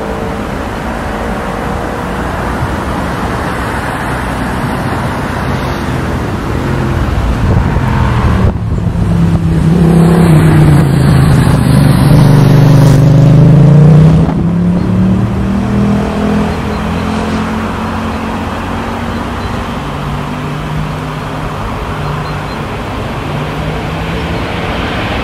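Jet airliner passing close by: a steady engine rumble swells to its loudest about halfway through, with humming engine tones that bend down and back up, then eases off to a steady rumble again.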